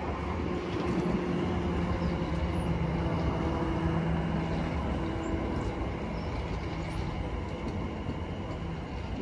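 Greater Anglia Class 720 Aventra electric multiple unit running past close by: a steady rumble of wheels on rail, with a few low humming tones held over it.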